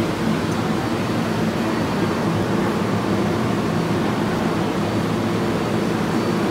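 Steady hum and rush of a subway train standing at a station platform with its doors open: a low drone under an even noise, with no sudden sounds.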